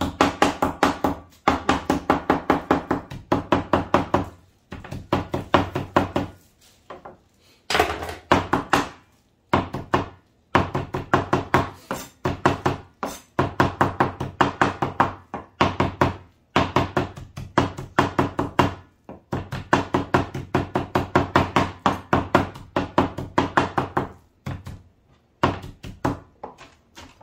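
Cleaver chopping rapidly on a wooden cutting board, mincing meat: quick runs of about five strokes a second broken by short pauses.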